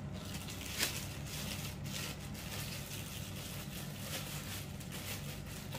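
Clear plastic bag crinkling and rustling in a run of small crackles as a new spinning reel is handled and unwrapped from it.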